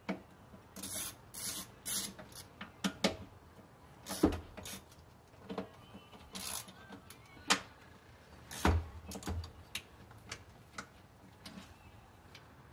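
Ratchet with a 10 mm socket on an extension backing out the bolts that hold a throttle body: irregular clicks, short bursts of ratcheting and light metal taps from the tools.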